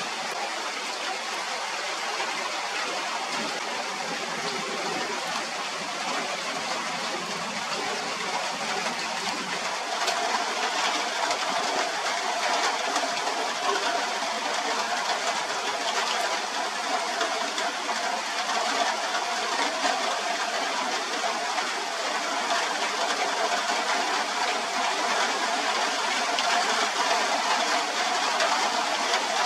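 Steady rainfall, an even hiss of falling drops that grows a little louder about ten seconds in.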